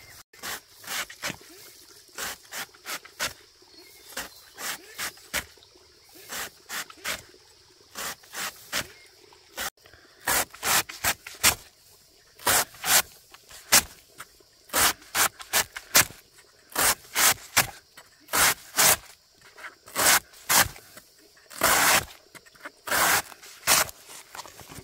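Repeated short scraping strokes, about one to two a second, that grow louder and come closer together about ten seconds in.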